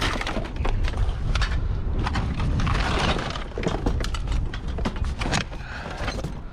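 Rummaging through a pile of junked cords and scrap: a run of irregular clatters, knocks and rustles as cable and metal are pulled out and handled, over a steady low rumble.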